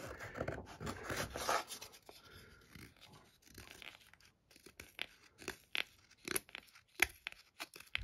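The Divo Knives Stout's thin sheepsfoot blade shaving curls off a wooden paint stir stick: a soft scrape in the first second or so, a quieter stretch, then a run of short, sharp shaving strokes through the second half.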